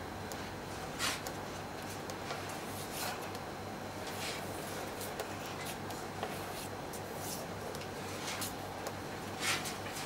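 Steady low hum and hiss with a few short, soft rustling scrapes scattered through it, about one every second or two.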